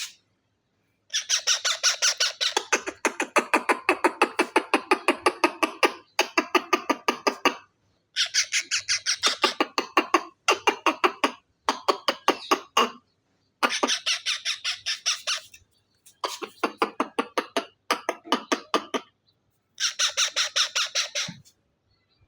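Baby parrot calling in rapid runs of harsh, pulsing squawks, several pulses a second, in about eight bursts of one to five seconds each, with short pauses between them.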